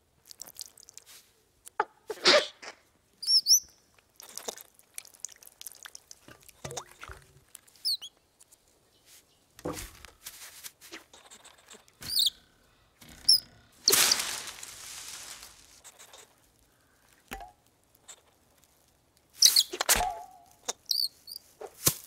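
Cartoon sound effects: a string of short, high squeaky chirps among light rustles, taps and clicks, with a longer rustle of about a second and a half midway and a few louder hits near the end.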